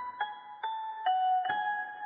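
Slow, soft lullaby melody on a piano-like keyboard: four single notes struck about half a second apart, each ringing on and fading.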